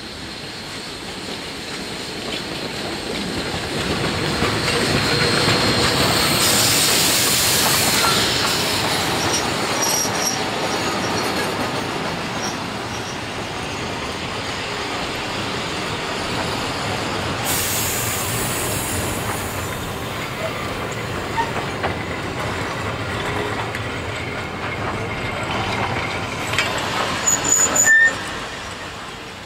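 Steam train hauled by a PB15 class 4-6-0 locomotive passing by on the rails. The sound swells to its loudest about six seconds in, then the train runs past steadily and drops away sharply near the end.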